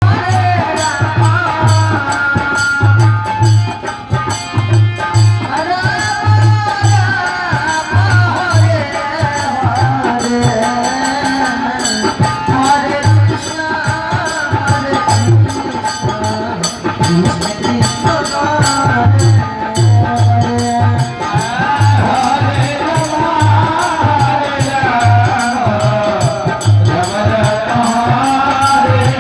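Devotional kirtan music: a melody over a steady drum beat and jingling hand percussion.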